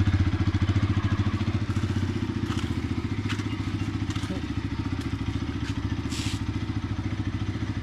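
Sport motorcycle engine running at low revs while the bike rolls slowly across a dirt yard: a steady, fast, even throb that grows a little fainter over the first couple of seconds as it moves off.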